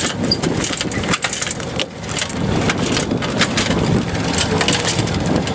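Wind rushing over the microphone aboard a sailboat under way, with dense crackling and rustling and a low steady hum underneath from about two seconds in.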